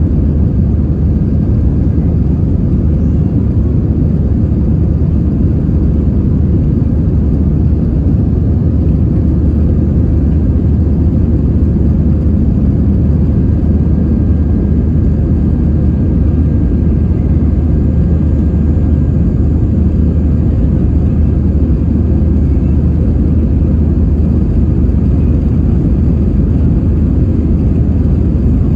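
Steady low rumble of an Airbus A320's engines and airflow, heard from inside the passenger cabin, with a faint steady whine above it.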